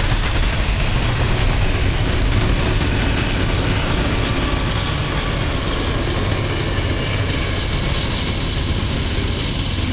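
Double-stack container train rolling past with a steady rumble of steel wheels on rails. The train's distributed-power diesel locomotives pass partway through. The sound eases a little toward the end.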